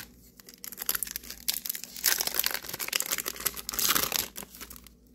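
Foil booster pack wrapper crinkling and tearing as it is opened by hand, with dense crackle and two louder ripping stretches, about two and four seconds in.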